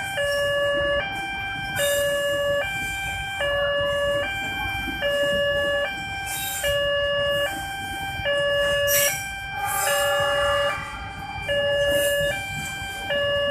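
Railway level crossing warning alarm sounding, a two-tone electronic signal switching between a higher and a lower pitch about every 0.8 seconds, over the low rumble of passenger coaches running over the crossing.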